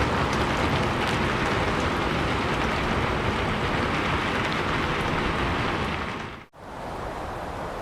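Steady heavy rain: a dense hiss with fine patter of drops. It breaks off about six and a half seconds in and gives way to a quieter, steady low rushing noise.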